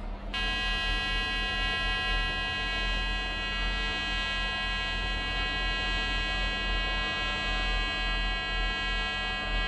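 Pulsed TIG welding arc on a stainless steel tube, buzzing steadily at a fixed pitch from the 150 Hz pulse at about 100 amps. The arc strikes about a third of a second in and holds unbroken.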